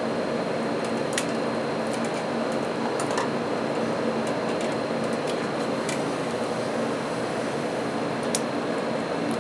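Steady background hum with a faint high steady whine, and a few short sharp clicks of wire strippers clipping and stripping electrical wire, about one, three and eight seconds in.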